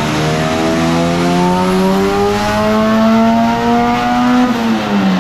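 Turbocharged Honda D16 1.6-litre four-cylinder in a Civic making a full-throttle pull on a chassis dyno. Its pitch climbs steadily under boost, then falls away near the end as the throttle is closed.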